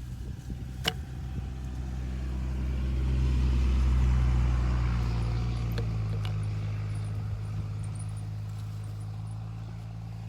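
A motor engine running steadily, growing louder toward the middle and then slowly fading, with a sharp click about a second in.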